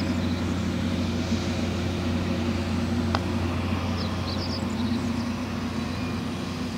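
Steady low engine hum throughout, with a single sharp click about three seconds in as a putter strikes a golf ball.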